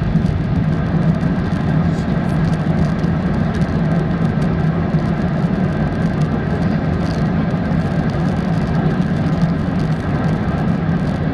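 Steady low rumble of an Airbus A380 heard inside the passenger cabin as it rolls along the runway after touchdown: engine and rolling noise.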